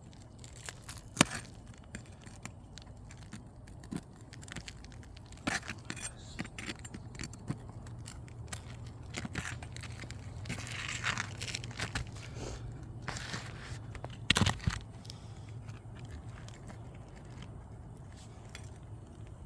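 Asphalt roof shingles being worked loose and lifted by hand and tool: irregular scraping, tearing and crackling with sharp clicks, loudest in a short burst about two-thirds of the way through. The shingles are hail- and wind-damaged, and the roofer finds they cannot be properly repaired.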